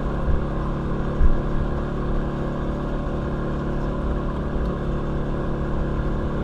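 DuoBond RL-EEZ powered windshield cut-out winder motor running steadily, reeling the cutting wire through the urethane bead to free the glass.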